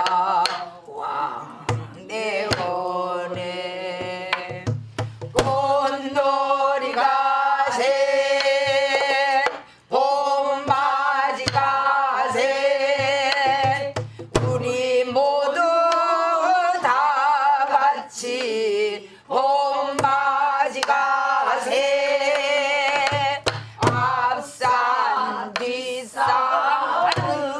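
A woman sings a Korean folk-style song in long held notes with a wide vibrato, accompanied by a buk barrel drum struck with a wooden stick, its sharp strokes and deeper thumps falling between the phrases.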